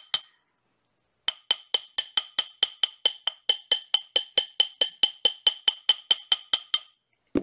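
A small hammer tapping a copper wire ring on a tapered ring mandrel. After about a second's pause it strikes in a quick, even rhythm of about five taps a second, each ringing with the same bright tone. The gentle tapping levels the wires and work-hardens the ring's shank.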